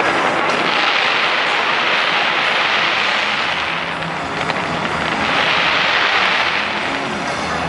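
Fireworks display: a dense, continuous crackle of bursting fireworks that swells twice, with no separate bangs.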